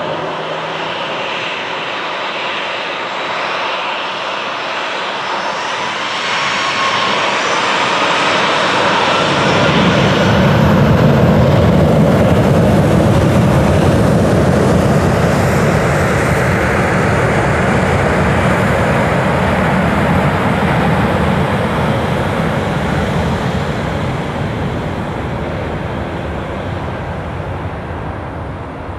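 Boeing 737's twin CFM56 turbofans whining at low thrust, then spooling up with a rising whine. About ten seconds in they break into a loud jet roar as takeoff thrust is set for the takeoff roll. The roar fades slowly as the jet accelerates away down the runway.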